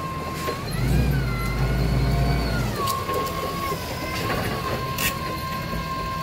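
Forklift engine running and revving up as the forklift drives off, with a whine that rises and then falls back after about two seconds. A few sharp clicks or knocks come over it.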